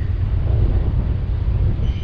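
Freight train of tank cars and hopper cars rolling past, a steady low rumble.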